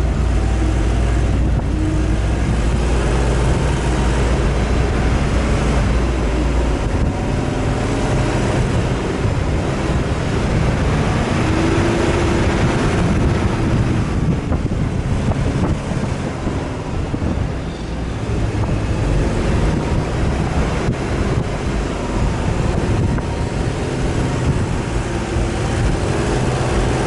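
Off-road vehicle driving, its engine running with changing revs over a steady rush of wind and tyre noise.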